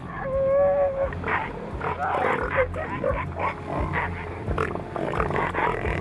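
Southern elephant seals calling: a short, high-pitched cry in the first second, then a run of rough, guttural grunting calls.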